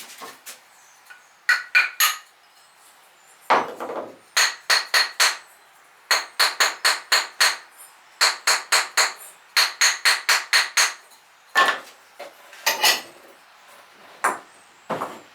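Quick runs of sharp, ringing taps on a hard object, about five a second in bursts of three to eight, with single knocks in between. They come while fired ware and kiln furniture are being worked loose in an opened stoneware kiln.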